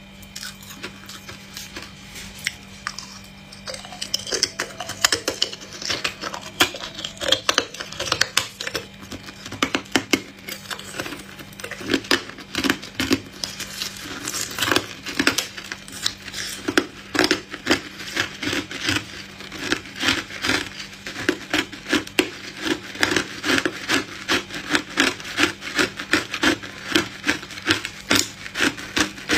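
Hard ice being bitten and chewed close to the microphone: sharp, crisp crunches and crackles, sparse at first and then a steady run of crunches from a few seconds in.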